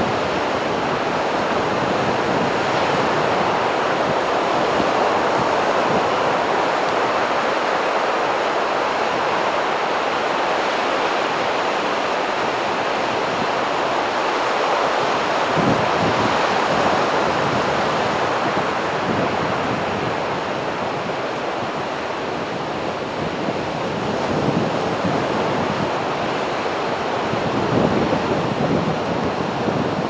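Heavy surf: rough sea waves breaking in rows and washing up a beach as a continuous rushing noise, with heavier crashes about halfway through and again near the end.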